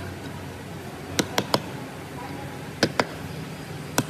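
Sharp knocks in small groups: three quick ones a little past a second in, two near three seconds, and one more near the end, over a low steady hum.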